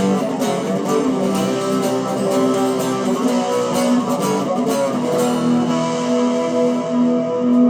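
Yamaha ERG121C electric guitar playing through effect pedals: picked and strummed chords for the first few seconds, then longer held, ringing notes near the end.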